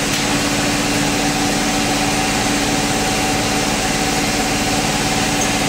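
Steady drone of workshop machinery running: a constant motor hum with two fixed tones over an even hiss, unchanging throughout.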